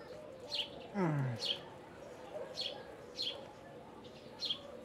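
A small bird chirping over and over, short high falling notes about once a second, over a faint steady hum. About a second in, a brief low sound that falls in pitch stands out as the loudest moment.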